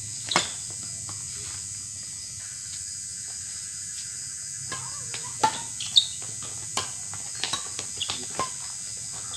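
Badminton rackets striking a shuttlecock with sharp pops: one hit just after the start, a pause, then a quick run of hits from about five and a half seconds in as a new rally is played. A steady high-pitched hum runs behind.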